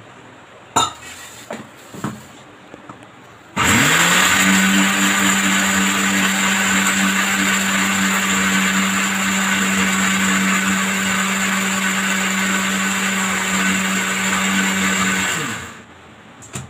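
Electric mixer-grinder (mixie) grinding coconut chutney ingredients (coconut, green chilli, ginger, cashews, roasted gram). A few knocks as the jar and lid are settled, then about three and a half seconds in the motor starts, quickly winds up and runs steadily for about twelve seconds before winding down near the end.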